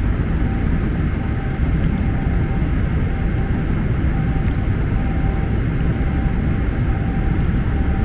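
Steady airliner cabin noise in flight: an even, low rumble of engines and airflow, with a faint steady tone that comes and goes.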